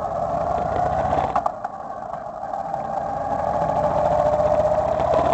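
Motorcycle engine running on the move, dropping off briefly about a second and a half in, with a few clicks, then pulling harder again towards the end.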